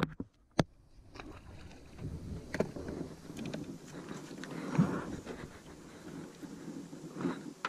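Water splashing and sloshing beside a jon boat as a big hooked bowfin thrashes at the surface, with wind on the microphone. A sharp knock comes about half a second in, and a few softer thumps follow.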